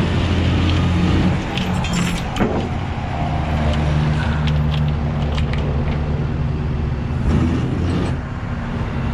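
Rollback tow truck's engine running steadily with its hydraulic winch pulling a wrecked car up the steel bed, with a few metallic clinks of chain and hook.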